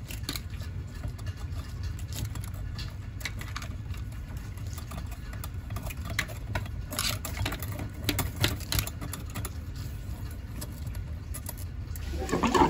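A wire hanger scraping and clicking inside the metal spout of an outdoor hose bib as it is pushed in to dislodge debris stuck in the valve, with scattered light clicks over a steady low rumble. Near the end a louder rush of water begins from the spout.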